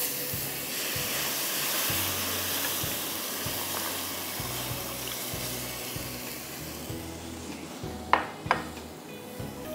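Water and then milk poured into a hot pan of butter-and-flour roux, hissing and sizzling as the liquid hits, while a spatula stirs; the hiss fades after several seconds. Two sharp knocks follow near the end.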